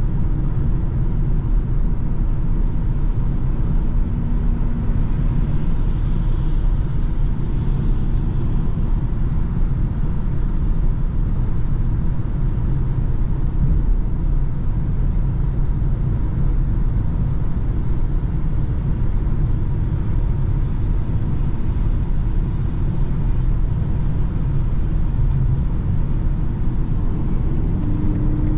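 Steady road noise inside a BMW's cabin at motorway cruising speed: tyre and wind noise over a low drone, unchanging throughout.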